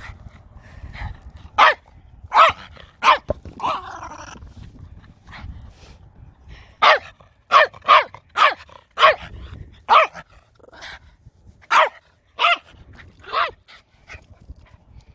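A dog barking repeatedly in short, loud barks: a run of four, a pause of a few seconds, then a quicker run of about ten.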